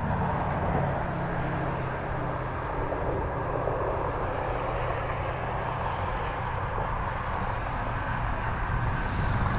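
Steady drone and rush of highway traffic, with no breaks or changes.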